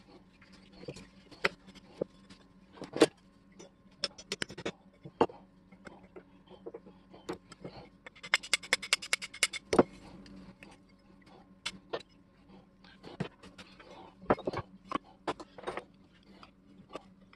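Small hammer tapping the thin brass badge of a 1924 Walker Badger jack to straighten it, with scattered single taps and clinks. Near the middle comes a quick run of light taps, about eight a second for roughly two seconds.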